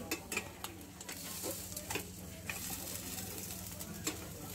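Small turmeric-coated fish sizzling in a dry non-stick frying pan, cooked without oil, with a metal spatula scraping and tapping the pan several times as the fish are turned.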